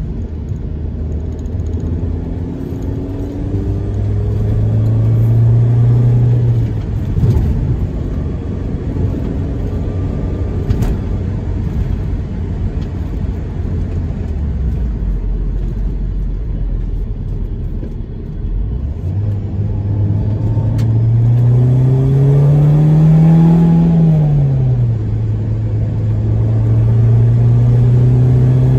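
BMW Z3 engine and road rumble heard from inside the cabin while driving. The engine note climbs as the car accelerates and falls back twice, about seven seconds in and again near 24 seconds, then holds steady.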